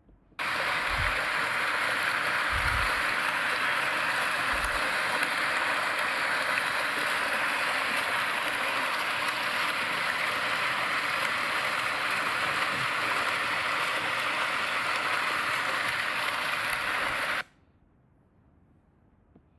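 Fountain jets splashing steadily into a pool, a continuous rushing of water that starts abruptly and cuts off suddenly near the end.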